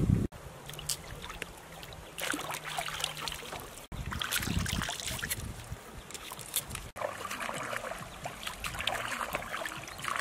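Shallow river water running over stones, with intermittent splashing and rinsing from hands washing food in the stream.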